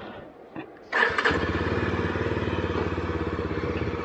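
Motorcycle engine started about a second in: a short burst of starting noise, then it catches and settles into a steady, evenly pulsing idle.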